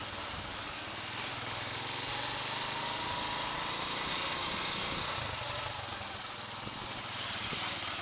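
Motorbike engine running steadily at low speed, with a steady hiss over it.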